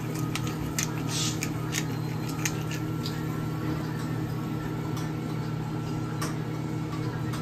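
Black pepper being ground over a pan of soup, with irregular clicks and short rasps in the first two or three seconds, over a steady low kitchen hum. A wooden spatula then stirs the soup, with a few faint clicks.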